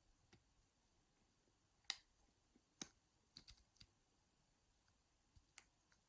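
Lock pick and tension wrench working inside a small Lince 30mm padlock: faint metallic clicks and ticks, a handful of them at irregular intervals, the sharpest about two seconds in.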